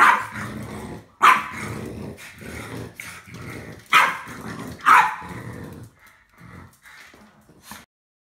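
Small dogs, a French bulldog and a pug-chihuahua cross, barking and growling in play-aggression at a broom: several sharp barks with growling between them, dying down about six seconds in and stopping near the end.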